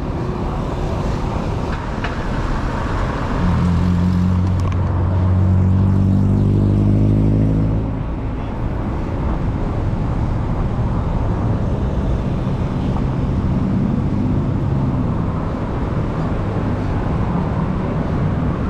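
Road traffic heard from a moving bicycle: a steady low rumble of road and wind noise. About three and a half seconds in, a motor vehicle's engine hum rises and then falls in pitch as it passes, fading by about eight seconds in.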